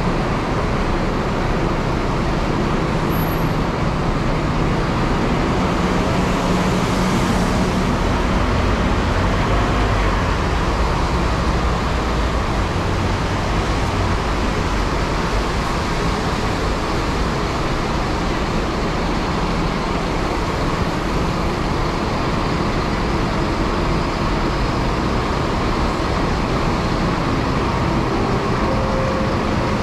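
Bus traffic: buses' engines running, a low hum under a constant hiss.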